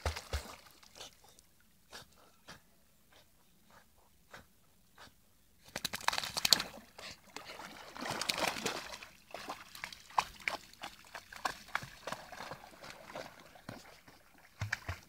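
A dog paddling and splashing through lake water: sparse splashes and drips at first, then from about six seconds in, much louder splashing and sloshing as it wades through the shallows.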